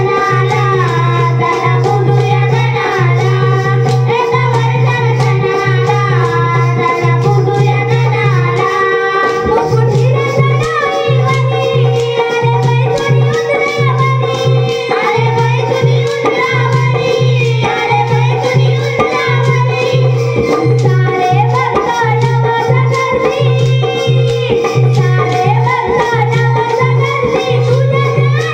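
Music with tabla-style hand drumming: a steady drone under a low beat pulsing about once a second, and a melody line that slides between notes. The low beat drops out briefly about nine seconds in.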